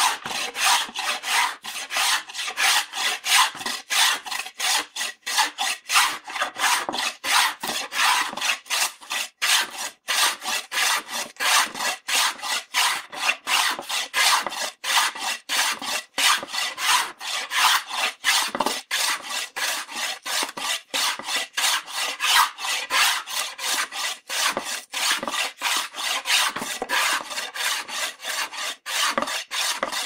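A slicer (Hobel) being pushed in quick, even scraping strokes, about three a second, with the wood vibrating under each stroke.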